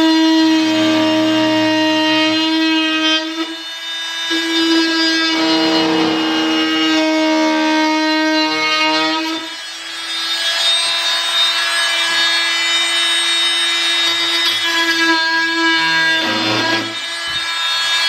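Dremel Multi-Max MM45 oscillating multi-tool running with a steady high whine, its wood blade plunge-cutting quarter-inch MDF with a rasping buzz. The sound dips briefly twice, a few seconds in and about halfway through, as the blade leaves and re-enters the board.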